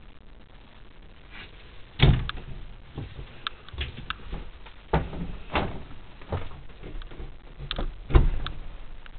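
Wooden cabinet doors inside a camper being opened and shut: a string of thumps and latch clicks, with heavy thumps about two seconds in and near the end.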